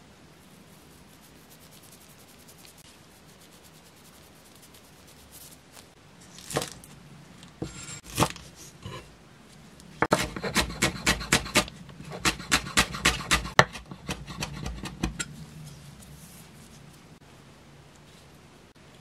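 Chef's knife slicing small green onions on a bamboo cutting board: a few single cuts, then a quick run of knife strokes against the board, about four or five a second for some five seconds.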